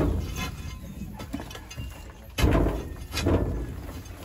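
Heavy thuds of a long bar driven into packed soil and broken concrete, with earth and rubble crumbling. One blow lands right at the start and two more come about two and three seconds in.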